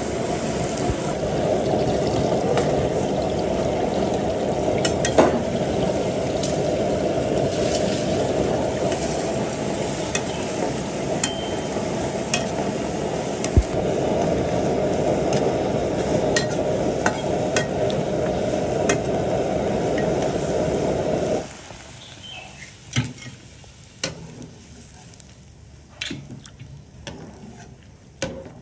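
Stovetop cooking: a steady rushing noise that stops abruptly about three-quarters of the way through, with scattered light clicks and taps of utensils on cookware.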